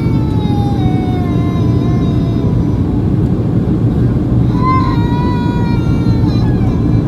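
Boeing 737-800 cabin noise from inside: a steady, loud low rumble of the CFM56-7B engines and airflow, with a whine that slowly falls in pitch over the first couple of seconds and a second, steadier whine about two-thirds of the way in.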